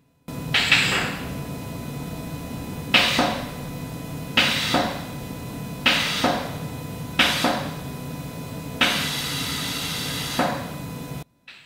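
Onboard air compressor of an air-bag suspension system running steadily while the bag pressures are adjusted, with seven sharp clicks, each followed by a short hiss of air, and a longer hiss of air about nine seconds in. The compressor cuts off suddenly near the end.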